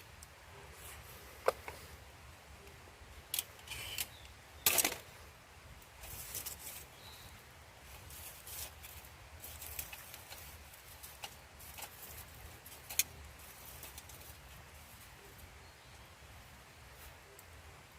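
Scattered light clicks, clinks and a short rattle of small hard objects being handled, sharpest about a second and a half in and near the middle, over a quiet outdoor background.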